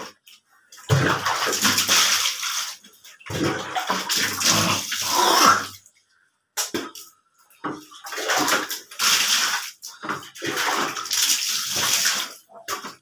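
Water splashing and sloshing on a red blanket being washed on a wet concrete floor, in two long stretches of several seconds with a short pause in between.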